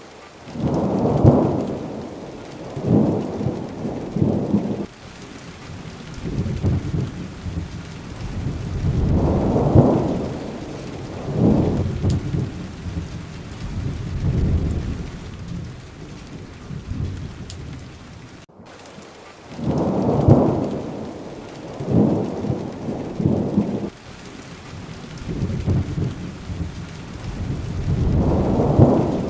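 Steady rain with rolls of thunder rumbling low every few seconds. The sound drops out for an instant about two-thirds of the way through.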